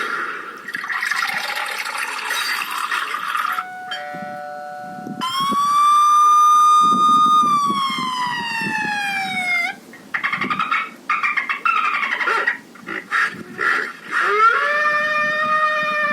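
A string of electronic sound effects played through the car's add-on loudspeaker from a phone app: a noisy stretch, two short beeps, then a long siren-like tone that holds and then glides down, some choppy sounds, and another tone sliding down near the end.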